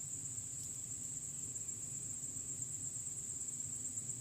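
Crickets trilling steadily in one continuous high-pitched chorus, over a faint low background rumble.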